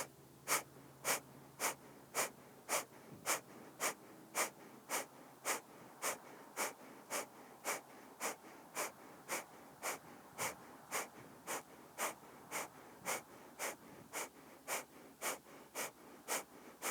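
A woman's rapid pranayama breathing: short, sharp breaths pushed out in a steady rhythm, about two a second, keeping an even pace throughout.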